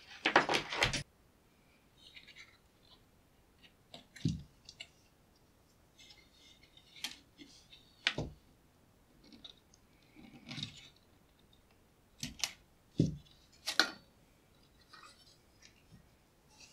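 Hands handling a circuit board and its ribbon-cable connectors in an opened metal equipment case: a brief rustle near the start, then scattered small clicks, taps and scrapes of plastic connectors and metal as a ribbon cable is worked loose.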